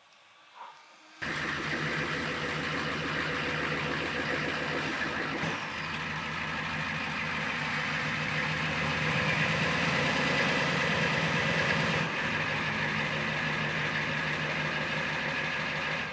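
A machine starts running abruptly about a second in and runs steadily like an idling engine, with a constant low hum under a broad noise, then cuts off just before the end.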